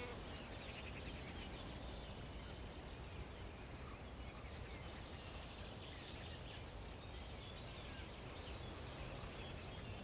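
Faint outdoor field ambience with insects chirping: short high ticks a few times a second over a low steady background hiss.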